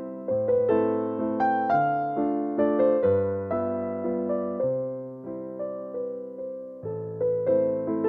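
Background piano music: gentle electric piano chords over a slow bass line, each note struck and fading away.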